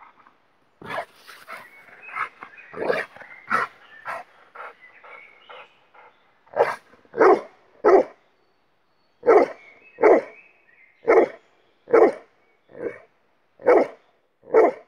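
A dog barking repeatedly. A few seconds of quick, uneven barks and yips come first. From about six seconds in there is a steady run of single loud barks, roughly one every 0.8 s.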